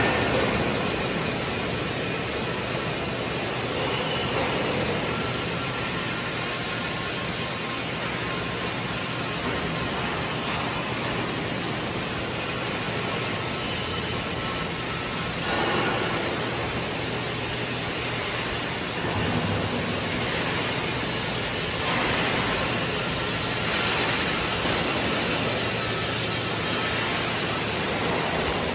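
Steady hiss of factory machinery around gantry welding robots, with a faint low hum underneath and a few mild swells.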